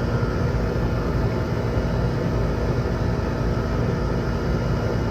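Outdoor air-conditioner condensing unit running steadily: an old reciprocating compressor and its condenser fan, giving an even mechanical noise with a constant hum.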